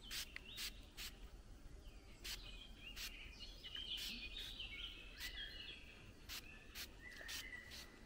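Woodland birds chirping and singing, faint, with scattered sharp ticks and a steady low background noise.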